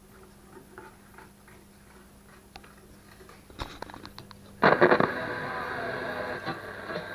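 Faint scattered ticks and crackles from a 1967 PYE 1113 transistor radio's noisy band switch, then a click, and about four and a half seconds in the radio's speaker comes in loudly with a broadcast station.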